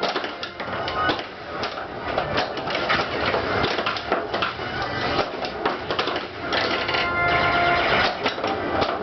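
Attack From Mars pinball machine in play: rapid clacking of the ball, flippers, solenoids and targets, mixed with the game's electronic sound effects and music.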